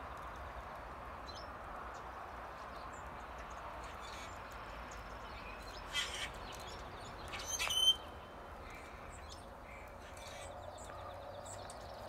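Small birds calling with short, scattered chirps over a steady background hiss; the loudest calls come about six and eight seconds in.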